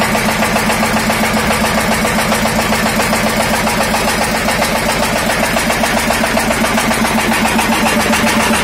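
24-horsepower stationary diesel engine running steadily, belt-driving a 6-inch Kawamoto water pump for irrigation: an even engine drone with a fast, regular pulse.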